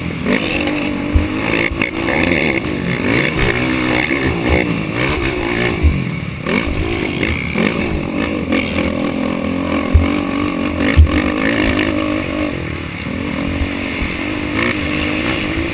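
Racing ATV engine revving up and down as it runs the track, its pitch rising and falling with each throttle change. A few short, heavy thumps stand out about a second in, near six seconds, and twice around ten to eleven seconds.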